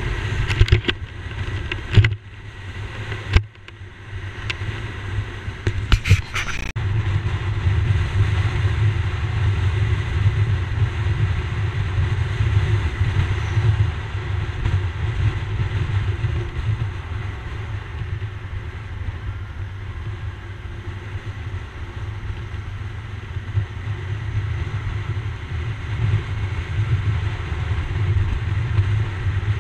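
Motorcycle riding along a road at steady speed: a low engine and road rumble, with a few sharp knocks and a short dip in level in the first seven seconds.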